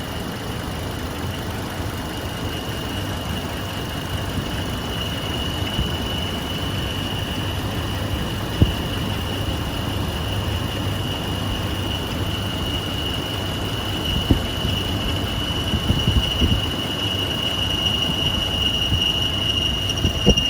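2006 Hummer H3's 3.5-litre inline-five running with a steady high-pitched squeal from the accessory belt drive, growing louder after a few seconds. The owner takes it for the serpentine belt or tensioner pulley; water on the belt quiets it only briefly.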